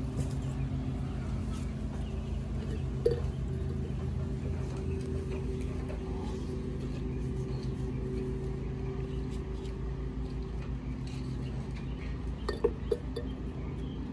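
A steady engine hum runs throughout, with a sharp knock about three seconds in and a few light clinks near the end.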